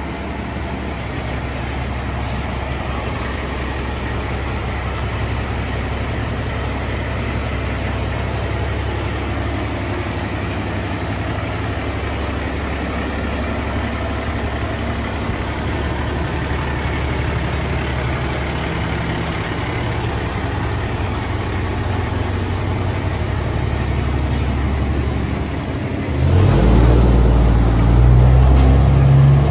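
Fire truck's diesel engine running steadily at idle, a deep even hum, which grows louder and heavier about 26 seconds in as it revs up.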